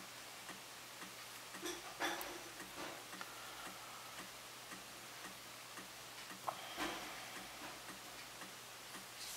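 A hobby knife trimming soft vinyl, with a few soft scrapes and clicks near two seconds in and again near seven seconds, over a steady light ticking of about three ticks a second.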